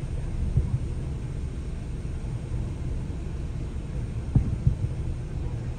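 Distant fireworks booming, heard muffled from inside a car as a few low thuds about half a second in and again a couple of times about four and a half seconds in, over a steady low rumble in the car.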